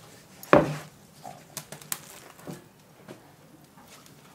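A single thump about half a second in as a heavy bacon-wrapped, mince-covered cauliflower is set down on a grill grate, followed by a few light clicks and handling sounds as it is shifted into place.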